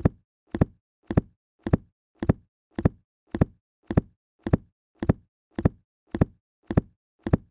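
Book-drop sound effect repeated in a loop: a book hitting a flat surface, a quick double thud with a brief tail, just under two times a second.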